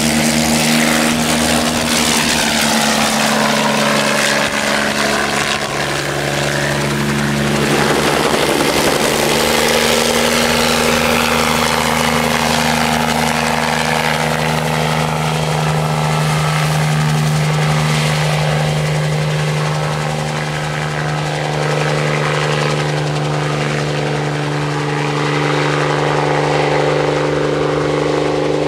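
Bell 47 helicopter's piston engine and two-blade main rotor running steadily as it flies low on crop-spraying runs. Its pitch slides up and down as it passes.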